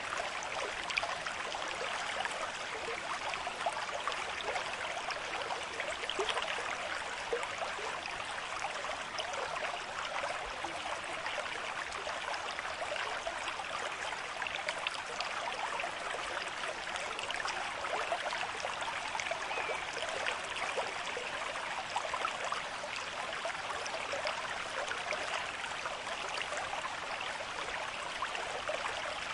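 River stream flowing at moderate pace: a steady rush of water with many small splashes and gurgles, even throughout.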